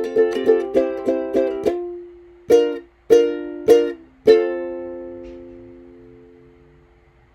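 Background music played on a plucked string instrument: a quick run of plucked notes, then four single chords about half a second apart. The last chord rings on and slowly fades away.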